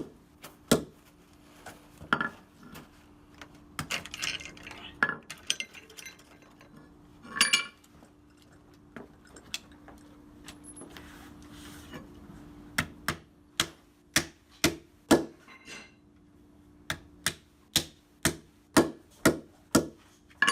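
Hammer strikes driving tack-strip nails into a concrete floor: scattered blows at first, then a quick run of sharp strikes at about two a second in the second half, with a brief metallic jingle of nails or tools about seven seconds in. A faint steady low hum sits underneath.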